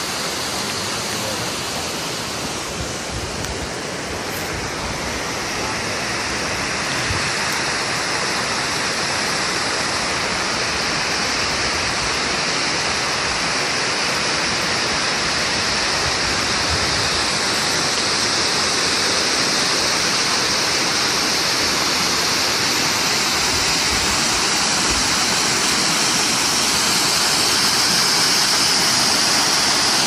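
Water rushing down an overflow weir's stepped cascade, a steady rush that grows slowly louder toward the end.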